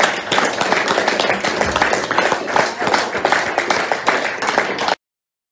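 A small audience applauding, many hands clapping at once, cutting off suddenly near the end.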